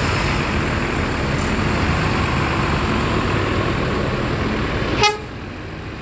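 Diesel engine of a Mercedes-Benz coach running as it pulls out past, over steady terminal noise. About five seconds in comes a short, sharp horn blast, and right after it the sound drops abruptly.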